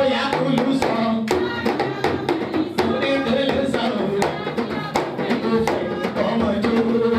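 Live drumming with singing: frequent sharp drum strokes under voices singing.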